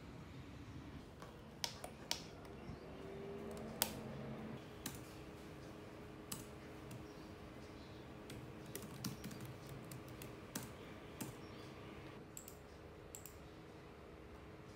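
Irregular clicks and taps of typing on an HP laptop keyboard, with occasional mouse clicks, over a faint steady hum.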